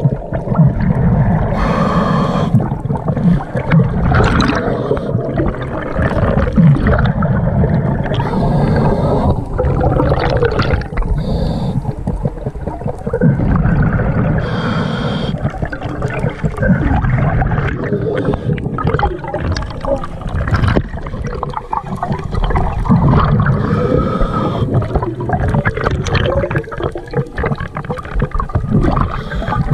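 Scuba regulator breathing underwater: a short hissing inhale about every six seconds, with long, rumbling, bubbling exhalations between.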